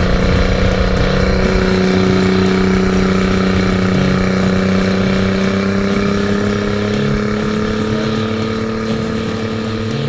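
Turbocharged Honda BF225 V6 outboard engine running steadily under power, its pitch climbing slowly as the revs build.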